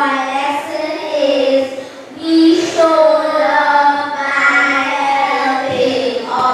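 Children singing a song together in long held notes, with a short pause for breath about two seconds in.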